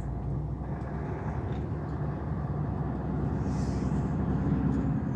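Truck engine running steadily at cruising speed, with road and tyre rumble, heard from inside the cab.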